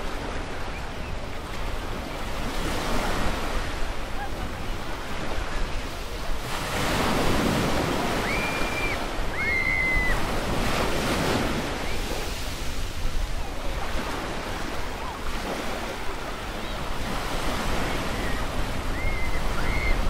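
Ocean waves washing onto a beach in a steady surf wash. The wash swells about seven seconds in and eases off by about twelve seconds.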